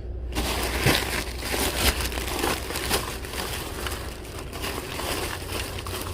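Rummaging through a bin of packaged items: plastic and packaging crinkling and crunching, with many small clicks and knocks of objects being handled.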